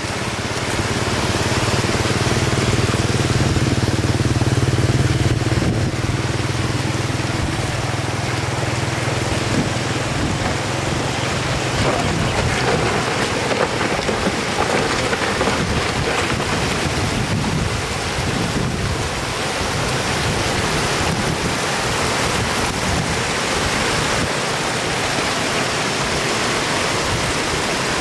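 Floodwater rushing in a steady shallow flow across a paved road and spilling over its edge, with a low steady hum under it for about the first twelve seconds that then fades out.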